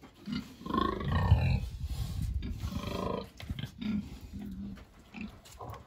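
Pigs grunting and growling at each other, two long harsh calls about a second in and again around three seconds, then softer short grunts: pen-mates still squabbling a little.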